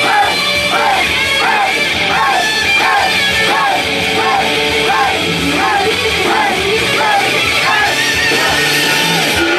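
Loud rock-style song played live, with a woman singing and a crowd of fans shouting along in time with the beat.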